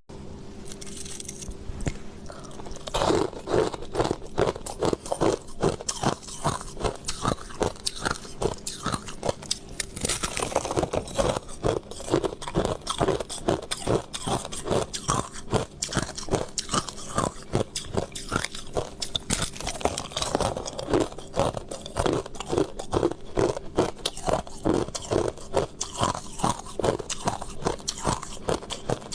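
Close-miked crunching and chewing of crushed ice: a steady run of crisp crunches, about two to three a second, starting about three seconds in, over a faint steady hum.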